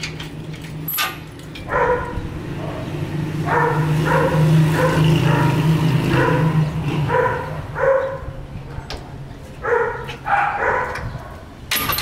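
A dog barking repeatedly in several runs of short barks, over a low steady hum. A sharp click comes about a second in.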